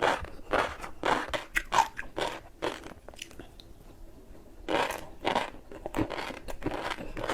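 Close-up chewing of a crunchy snack: a quick run of sharp crunches, a pause of about a second and a half, then the crunching resumes.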